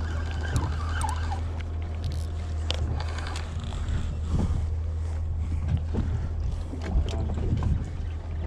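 Steady low rumble of wind on the camera's microphone aboard a fishing boat, with scattered light clicks and knocks.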